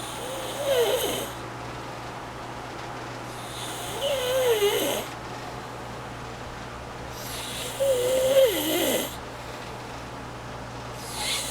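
A sleeping person snoring: three long snores about four seconds apart, each with a wavering tone that drops in pitch, and a fourth beginning near the end.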